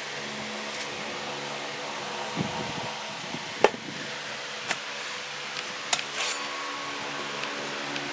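Steady low mechanical hum like a running fan, with a few sharp clicks, the loudest about three and a half seconds in and others around four and a half and six seconds.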